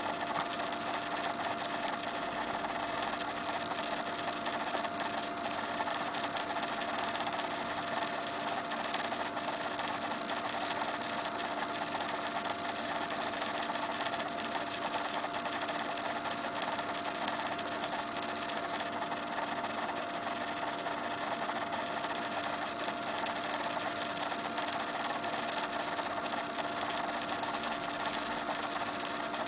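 Steady mechanical whirring hum of a small motor, with a few steady tones in it, unchanging throughout.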